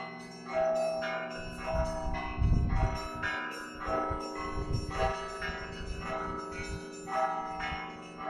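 Russian Orthodox church bells ringing from a monastery belfry: small high bells struck in a quick repeating pattern, about two strokes a second, over the steady hum of larger, deeper bells. A low rumble comes in twice in the middle.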